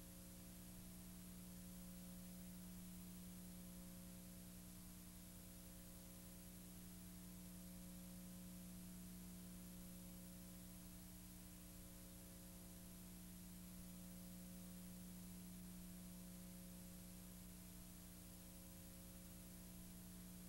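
Near silence: a steady low electrical hum with faint hiss, nothing else.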